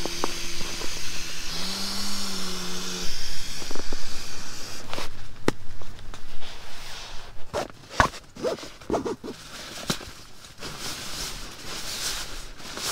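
Air rushing from a pump sack through a sleeping pad's inflation valve, with a low buzzing honk as the sack is squeezed, then stops about three seconds in. Clicks, knocks and fabric rustling follow as the sack and valve are handled.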